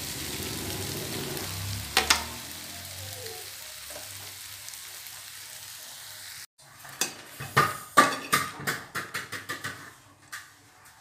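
Stir-fried bitter melon and egg sizzling in a frying pan, with a single knock of the wooden utensil about two seconds in. After a cut, a quick run of clattering knocks and scrapes against the pan as the food is served onto a plate.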